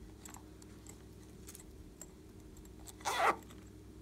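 A single short scraping rasp about three seconds in as hands handle a pink rubber toy figure, with faint small clicks around it.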